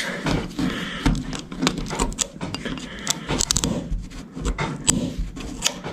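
Old Bondo body filler being picked and peeled off a car hood, with irregular clicks, cracks and scraping as it breaks away in pieces.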